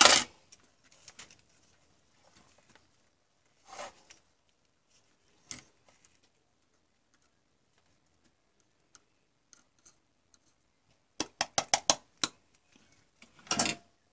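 Soldering tools and a small circuit board being handled on a wooden table: scattered light taps and short scraping sounds, with a quick run of about eight sharp clicks near the end.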